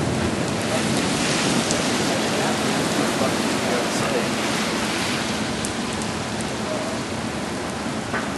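Steady rain falling, an even hiss that holds throughout.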